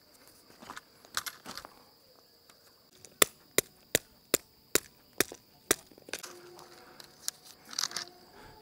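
Tent stake being hammered into stony ground: seven sharp strikes at about three a second, starting about three seconds in.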